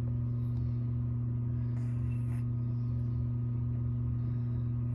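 Tortoiseshell kitten's labored, congested breathing, a low rhythmic pulse about one and a half times a second, from infections in her chest and nose. Under it runs a steady low electrical hum, and there is a soft rustle of hand on fur and towel about two seconds in.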